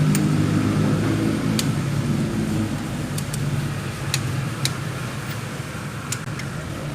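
A motor vehicle engine running, louder for the first two or three seconds and then easing off, with a few sharp clicks and taps over it.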